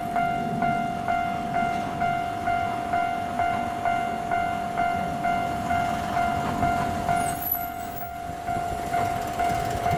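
Japanese level-crossing warning bell ringing steadily, a little over two strikes a second, as a Chiba New Town Railway 9800-series electric train approaches, its running noise growing in the second half.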